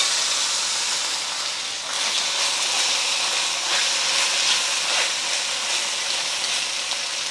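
Raw chicken thigh pieces sizzling in a smoking-hot wok of vegetable oil: a steady frying hiss that eases slightly over the seconds, with scattered small pops.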